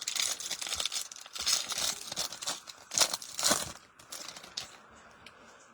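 Crinkling and rustling of trading-card pack wrappers and cards being handled, in quick crackly strokes that die down after about three and a half seconds.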